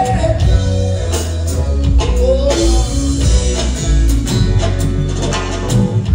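Band music with a heavy bass line, guitar, drum kit and a singing voice.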